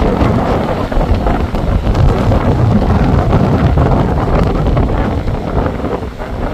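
Strong wind buffeting the microphone: a loud, gusty rumble with no break.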